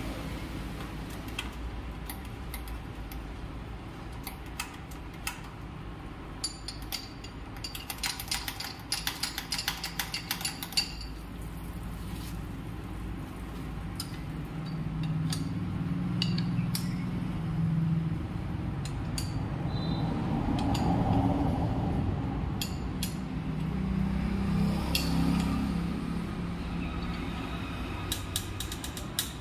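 A metal spanner clicking and clinking on the fittings of a Mahindra 585 DI tractor's diesel fuel filter, with a dense run of rapid ticks partway through. A steady low hum runs underneath and swells twice.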